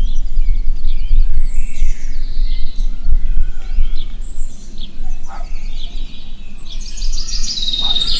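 Birds chirping and whistling in short scattered calls, a countryside ambience track, with a denser trilling song starting near the end. A steady low rumble runs underneath.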